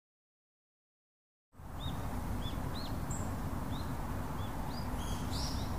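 Silence for about a second and a half, then outdoor ambience fades in: a steady low rush with small birds chirping, scattered short chirps and a few louder ones near the end.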